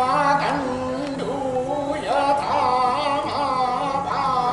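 Male voices chanting a Vedic hymn in long, drawn-out melodic phrases, the held notes wavering up and down, with a brief break about two seconds in.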